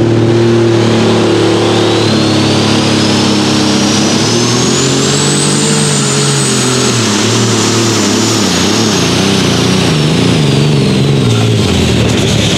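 Light super stock pulling tractor's turbocharged diesel engine at full throttle under load, dragging the sled. A high turbo whine climbs in pitch through the first half and falls away near the end, and the engine note wavers in the second half as the pull goes on.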